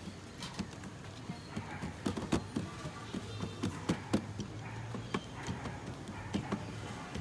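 Hands patting and pressing a ball of dough flat on a ceramic plate, making irregular light taps and knocks that are busiest in the middle, over a steady low hum.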